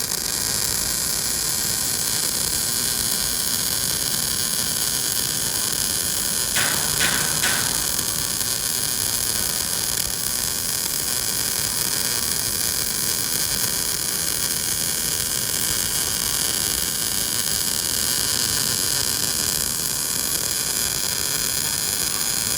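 Welding running steadily around a round pipe on a rotating positioner: a continuous even hiss with a faint hum, with three brief crackles about seven seconds in.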